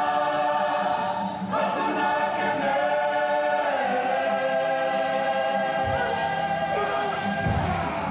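Māori kapa haka group singing an action song (waiata-ā-ringa), men's and women's voices together in full voice, holding long notes that shift about a second and a half in and again near halfway.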